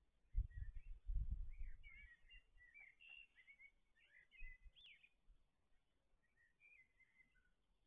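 Small songbirds chirping and twittering faintly, many short quick notes, with a few brief low rumbles in the first two seconds.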